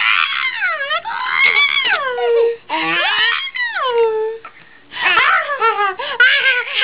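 Baby laughing in long, high-pitched squealing whoops whose pitch slides up and down, close to crying in sound, in three drawn-out bouts with short breaths between.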